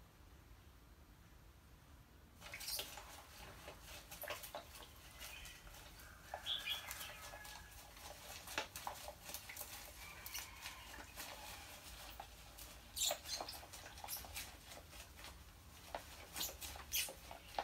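A rat struggling in a glass tank of water under a layer of floating white beads: a couple of seconds in, a busy run of splashing, crackling bead rustle and sharp clicks starts up and goes on irregularly.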